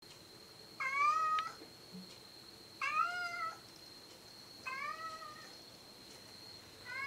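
Domestic cat meowing as it walks past: three drawn-out meows about two seconds apart, each rising then holding, with a fourth starting near the end.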